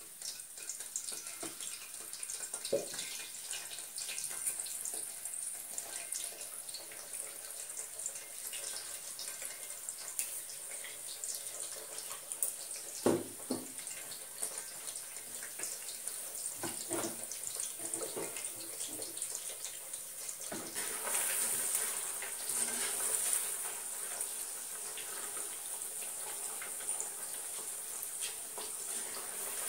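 Paneer cubes deep-frying in hot oil in a kadai, a steady sizzling hiss. A few sharp metal knocks come around the middle, and the sizzle grows louder and fuller about two-thirds of the way in.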